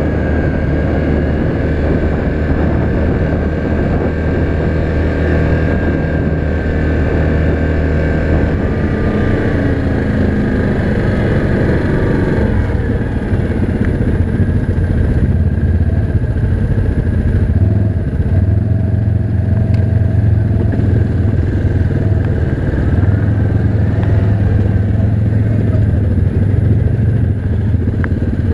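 Yamaha Grizzly 700 ATV's single-cylinder four-stroke engine running under way. Its pitch falls about ten seconds in as it slows, then it runs steadily.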